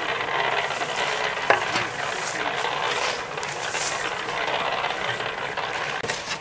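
Small portable concrete mixer running, its drum churning sand and cement with a steady rattling grind. A shovel scoops sand, with a sharp knock about a second and a half in.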